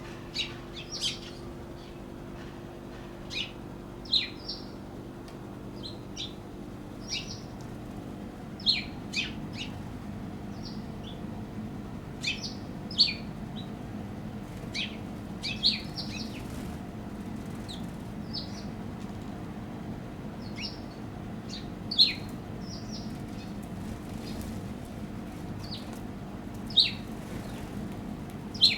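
Eurasian tree sparrows chirping at a feeder: short, sharp chirps, one or two at a time, scattered irregularly over a steady low background hum.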